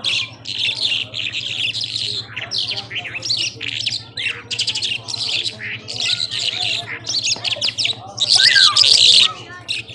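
A lark (Irani Mashadi jhal) singing a continuous, fast song of varied chirps, trills and rapid phrases, loudest about eight seconds in. A steady low hum runs underneath.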